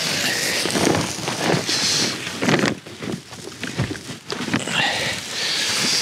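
A round woven straw hand fan swung back and forth over a charcoal grill, making repeated whooshes about one or two a second as it fans the coals to keep them glowing, with a short lull about midway.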